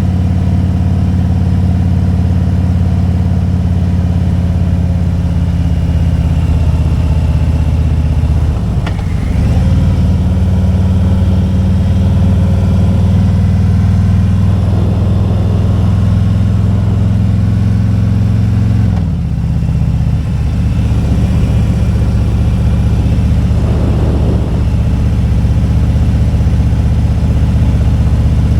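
Motorcycle engine running steadily under way. Its note changes twice, about nine and nineteen seconds in, each time with a brief dip in loudness.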